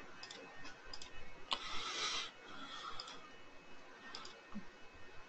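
Faint computer mouse clicks, a handful of separate clicks spread out over a few seconds, with a short soft hiss about one and a half seconds in.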